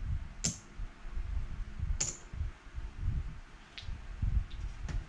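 Two sharp clicks about a second and a half apart, then a few fainter ticks, over soft low knocks of handling on the table.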